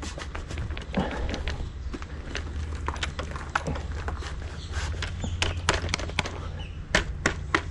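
Scattered light clicks and knocks as a hand presses on and handles a freshly locked downtube battery in its cradle on an e-bike frame, over a low steady rumble.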